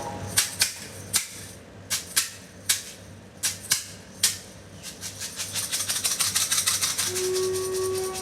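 Scattered sharp clicks and knocks, then a fast, even shaker-like rattle that builds up, with a soft recorder note coming in near the end.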